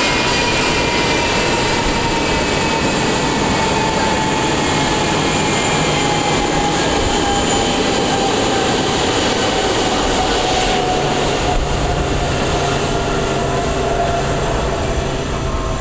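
Boeing 757-200's twin turbofan engines running at taxi power as the jet rolls past. The steady whine has several tones that slide slowly down in pitch as it moves away.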